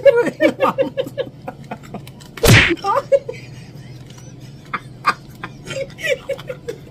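One loud, sharp smack about two and a half seconds in, a hand slap to the face, with short bursts of laughter before it.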